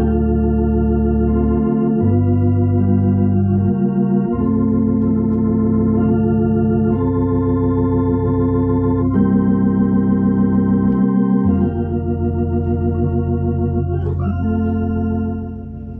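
Electronic organ playing slow, held chords over sustained bass pedal notes, the chords changing every second or two, with a wavering vibrato.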